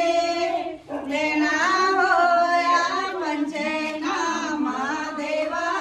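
A song with a woman's voice singing long held notes over light backing music, breaking off briefly about a second in.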